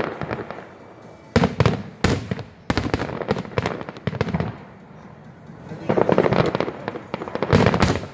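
Aerial fireworks going off: a rapid series of sharp bangs, thickening into dense crackling clusters around the middle and again near the end.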